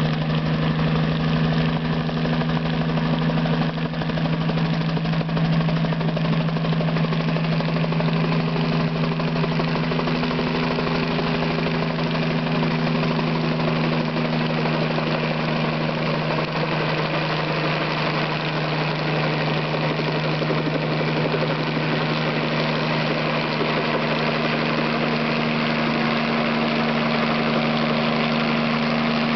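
Radio-controlled scale model helicopter's small engine and rotors running steadily as it hovers and descends to land, with a faint slow drop in pitch in the first half.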